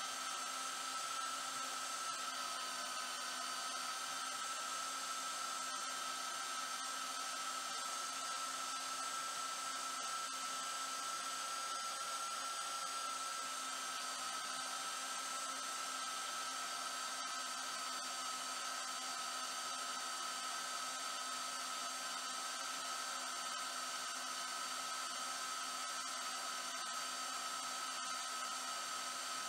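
Vevor portable handheld metal-cutting bandsaw running on its slowest speed, the blade steadily cutting through a 20 mm thick, 100 mm wide block of mild steel. An even, unchanging motor whine with a steady high tone.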